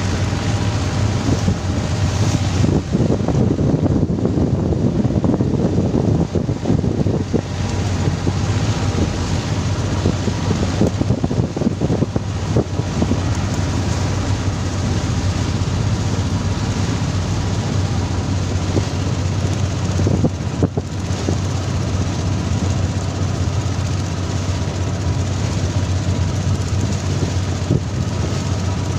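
A fishing boat's engine running steadily under way, a constant low hum, mixed with wind on the microphone and water rushing past the hull.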